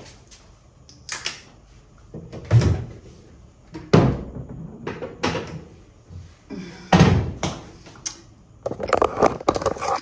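A string of dull knocks and thumps, the loudest about two and a half, four and seven seconds in, with a quicker run of them near the end.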